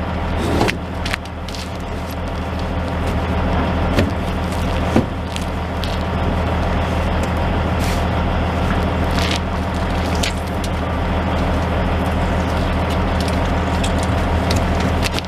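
A heavy truck's diesel engine idling with a steady low hum. A few short knocks come as a rolled tarp is pushed into a metal storage box under the trailer.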